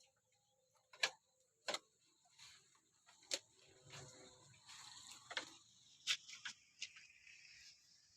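A doe goat that has just kidded coughing: about six short, sharp coughs at irregular intervals.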